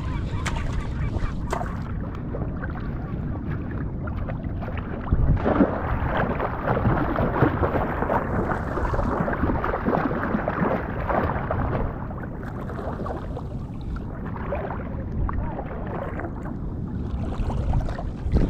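Rough sea water splashing and churning around the microphone, busier and louder in the middle.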